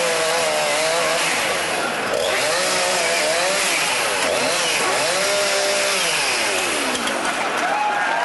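Chainsaw running loud and cutting, its engine pitch repeatedly rising and dipping as it revs and bogs down in the cut.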